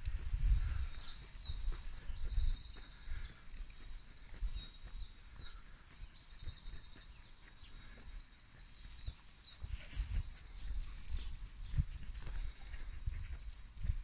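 Songbirds singing, many short high chirping phrases one after another, over a low rumbling noise on the microphone that swells about ten seconds in.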